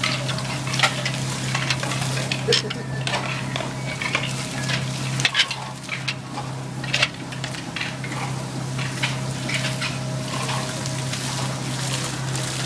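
Hand tools scraping and tapping on wet plaster, irregular strokes, over a steady low motor hum that drops out for a moment midway.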